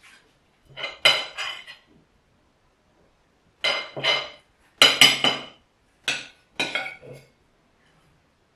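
A small metal utensil scraping and clinking against a ceramic cake plate in short clusters of strokes, the loudest about five seconds in.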